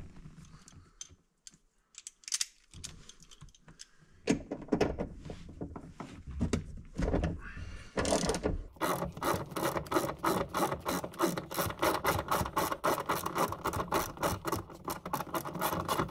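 Ratchet wrench with a 14mm socket clicking as it backs out the seatbelt's C-pillar bolt: a few irregular clicks at first, then steady ratcheting at about four clicks a second from about halfway in.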